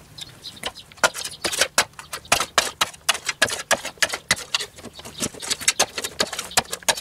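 Loose rubble and grit being scraped and knocked away from the base of an old brick wall: quick, irregular clicks and scrapes, several a second, starting about a second in.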